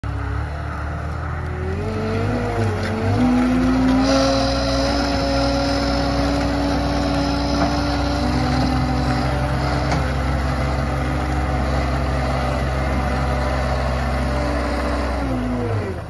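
Caterpillar compact track loader's diesel engine revving up over the first few seconds, then running steadily under load as it pulls a disc harrow through the ground. A high whine joins in about four seconds in, and the engine note drops just before the end.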